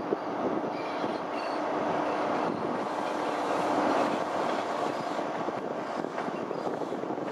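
High Speed Train of Mk3 coaches running slowly: a steady rumble of wheels on rail with a faint thin wheel squeal, heard close up from an open coach window.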